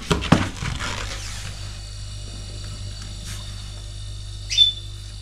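Compressor of a new TCL refrigerator running with a steady low hum on its first start-up. A few knocks in the first second or so, and a short high chirp near the end.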